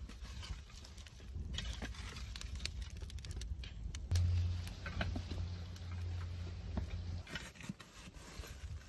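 Charcoal embers in a clay tandoor pit crackling and clinking as a spade is pushed through them to spread the coals, with many small sharp clicks and crunches. A steady low hum runs underneath from about four to seven seconds in.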